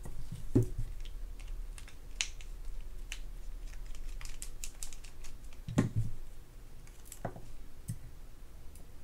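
Light clicks and taps of a small screwdriver, tweezers and tiny screws being handled and set down on a paper-towel-covered mat while a spinning reel is taken apart, with a few louder knocks.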